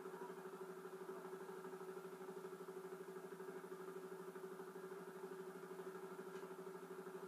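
An engine idling steadily with a fast, even pulse, heard thinly through a television speaker.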